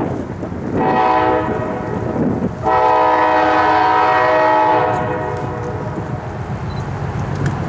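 An approaching train sounds its horn, a chord of several steady notes: two blasts starting about a second in, the second one longer, with a brief break between them. After the horn stops, about five seconds in, only the train's steady rumble remains.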